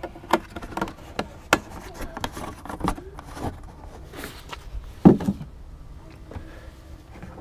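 Handling noise in a car's engine bay: a series of clicks, knocks and rustles as a plastic motor-oil jug is grabbed and moved, with one louder thump about five seconds in.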